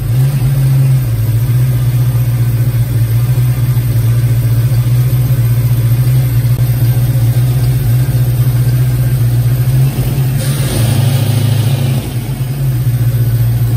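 1990 Ford Mustang GT's 5.0-litre V8 idling steadily just after a cold start. The idle holds steady and does not surge, so the harness fault the owner is hunting does not show itself.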